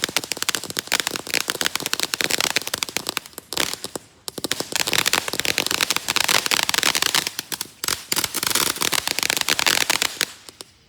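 Fireworks crackling: a dense run of rapid small pops that eases briefly twice and dies away near the end.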